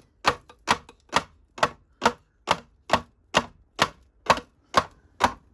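Steady, even series of sharp knocks, about two hits a second.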